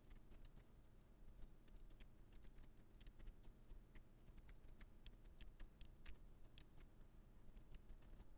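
Faint, irregular clicking of computer keyboard keys and mouse buttons, a few clicks a second.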